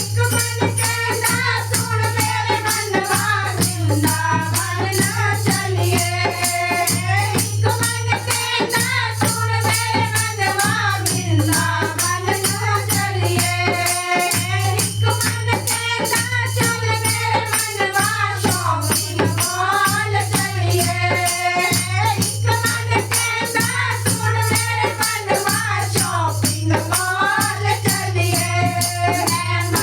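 Devotional bhajan sung with a rattling percussion instrument keeping a fast, steady beat, over a steady low hum.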